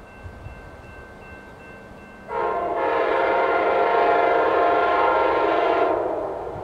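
Amtrak P42 diesel locomotive's air horn sounding one long blast, a chord of several tones, starting a little over two seconds in, held for about three and a half seconds, then fading.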